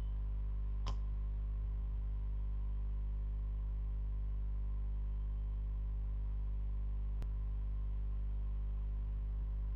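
Steady low electrical hum with its overtones, with two single sharp clicks, one about a second in and one about seven seconds in.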